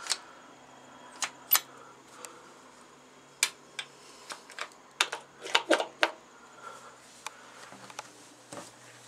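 Pushbuttons on a locomotive control panel being pressed, giving sharp, irregular clicks with a quick cluster about five to six seconds in. The controls are dead, so only the buttons' own click is heard.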